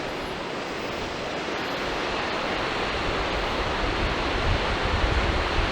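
Steady rush of water from the gorge's waterfalls, with a low wind rumble on the microphone that grows stronger in the second half.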